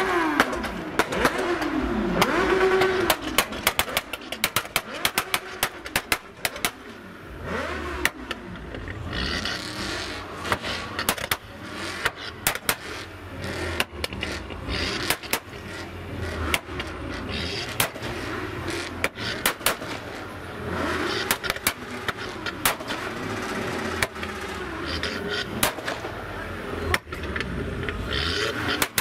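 Car engine revving in blips, its pitch rising and falling, with many sharp cracks scattered throughout.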